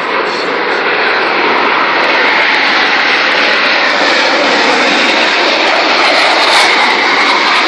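Jets of an air show demonstration team flying past fast. Their jet noise is loud and steady, building over the first couple of seconds and then holding.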